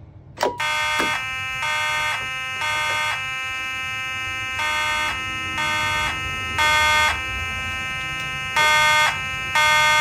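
A fire alarm manual pull station is pulled with a sharp click, and the alarm system starts at once: several fire alarm horns sound in the temporal code 3 pattern, three blasts about a second apart then a pause, repeating, over a steady tone that stays on underneath.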